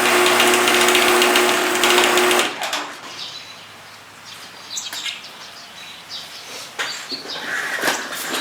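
Motorised garage door running with a steady hum, stopping abruptly about two and a half seconds in; after that only faint scattered sounds remain.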